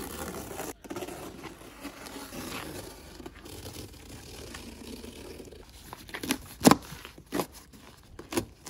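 A large cardboard box being torn open by hand: scraping and rustling of cardboard, then several sharp, loud rips of cardboard and packing tape in the second half.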